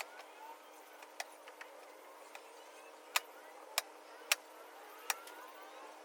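Caulking gun applying seam sealer, its trigger clicking sharply about six times at uneven intervals over a faint steady hum.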